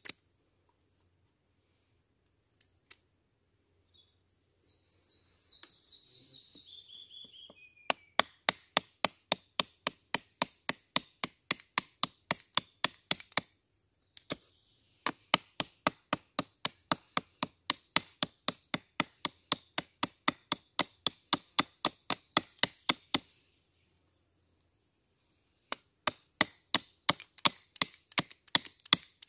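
A blade chopping into wood while a wooden spoon is roughed out: sharp, evenly spaced strikes at about three to four a second, in runs of several seconds with short pauses. Before the strikes begin, a bird gives a quick run of high notes that steps downward.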